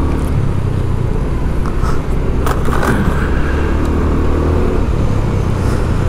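Steady low rumble of a motor vehicle's engine and road noise, with a couple of brief clicks about two and a half and three seconds in.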